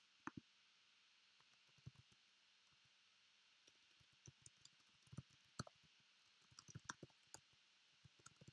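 Faint keystrokes on a computer keyboard: irregular single taps at first, then quicker clusters of typing in the second half.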